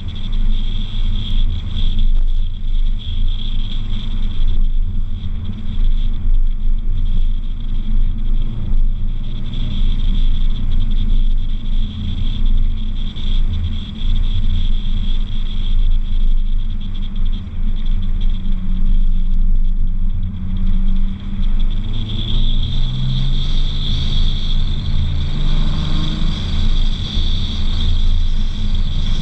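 Nissan 350Z's V6 engine running under steady road and wind noise while the car drives. A constant high whine sits over it throughout. A little over two-thirds of the way in, the engine note climbs as the car accelerates.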